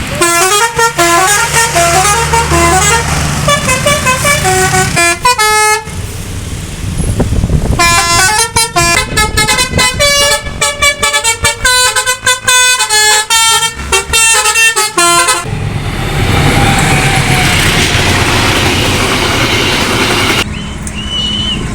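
Bus 'telolet basuri' melody horn playing fast tunes of quick stepped notes in two long runs, the first ending about six seconds in and the second running from about eight to fifteen seconds. Between and after the runs comes engine and traffic noise.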